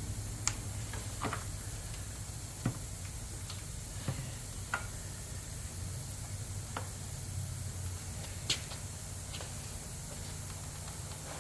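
Faint, irregular light clicks and taps of small parts being handled, about eight over several seconds, over a steady low hum.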